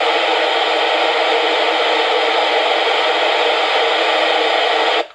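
Open-squelch FM receiver hiss from a Yaesu transceiver tuned to 55.150 MHz with no signal present: a loud, steady rushing noise. It cuts off suddenly about five seconds in, the FM quieting of the walkie-talkie's carrier coming in.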